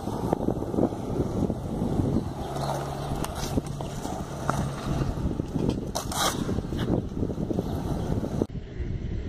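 Skateboard wheels rolling on concrete, a continuous gritty rumble, with a few sharp clacks of the board about six and seven seconds in.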